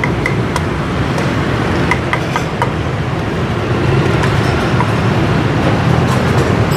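Steady roar of street traffic, with a few sharp knocks from a cleaver chopping on a wooden board.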